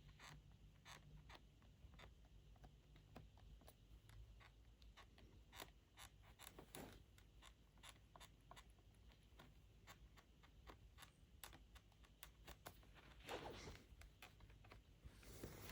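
Bottom case of a MacBook Pro 16 (M2) squeaking and creaking faintly as it is pressed gently: a run of small clicks and ticks, with a few longer creaks about a third of the way in, again later, and a louder one near the end.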